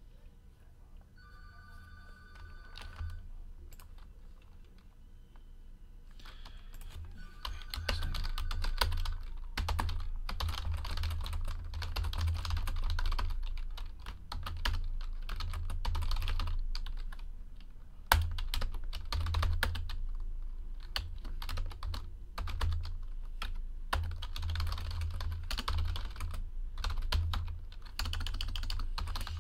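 Typing on a computer keyboard: rapid runs of key clicks, sparse at first and dense from about seven seconds in. A brief steady electronic tone sounds about a second in and again near eight seconds.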